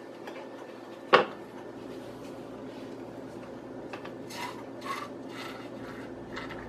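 A plastic mixing bowl is set down on a kitchen counter with one sharp knock about a second in. Around four to five seconds in come softer plastic clicks and rubbing as a meat injector is handled, over a steady low hum.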